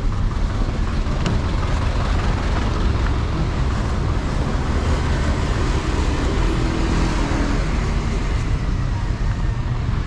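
A bus's 2009 Hyundai diesel engine running on the road, heard from inside the cabin: a steady low engine rumble with tyre and road noise.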